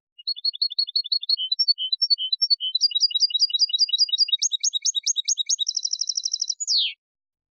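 European goldfinch singing one clean phrase of Málaga-style copia song: quick runs of repeated chirping notes that speed up into a fast trill, ending with a single falling note.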